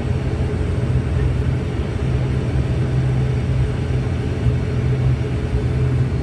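ATR 72-600 turboprop engines and propellers running at low power as the aircraft taxis after landing, heard inside the passenger cabin: a steady drone with a deep hum.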